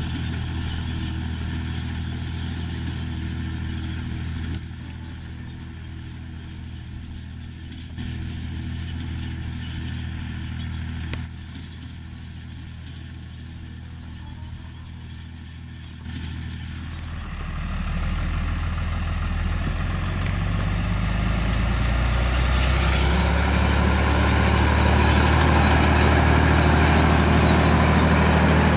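John Deere 3350 tractor's six-cylinder turbo diesel engine running steadily under load while pulling a seed drill. It drops in level in a few sudden steps through the middle, then grows steadily louder over the last ten seconds as the tractor comes close.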